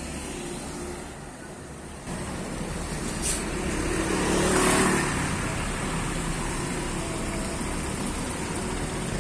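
A tour bus's engine running as it passes close by, over road traffic noise. The sound swells and is loudest around four to five seconds in, then settles to a steady run.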